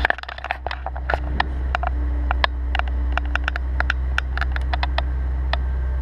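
Irregular clicks, taps and rubbing of a camera being handled and wedged down among hoses and wiring in a car's engine bay, over a steady low hum.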